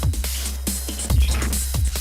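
Electronic music with a steady deep bass and kick drums that drop sharply in pitch on each hit.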